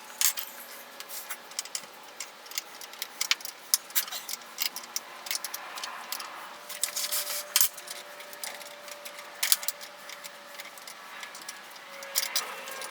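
Irregular light clicks and taps of hand tools working loose the wooden piece on an antique hand-powered post drill during disassembly.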